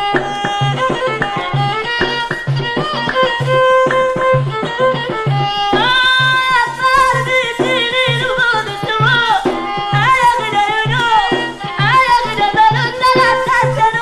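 Old Amazigh folk song: a fiddle melody over a steady hand-drum beat of about two strokes a second, with a singing voice coming in about six seconds in.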